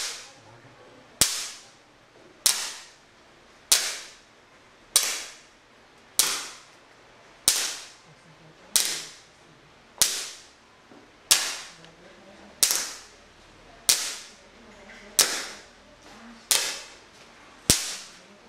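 Sharp cracks, about one every second and a quarter, as a wireless remote fireworks firing system sets off its receivers' igniters one after another in sequential-fire mode. Each crack fades quickly.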